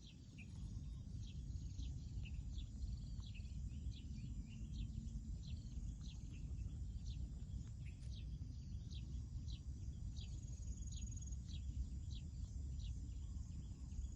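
A bird chirping over and over, short high notes about two a second, over a steady low rumbling noise.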